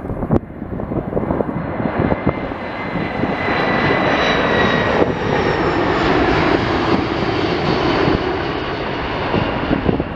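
Jet noise from a Boeing E-4B Nightwatch's four General Electric CF6-50 turbofans as the four-engined jet passes low overhead on landing approach, gear down: a loud rushing rumble with a high fan whine, building to its loudest in the middle and easing near the end.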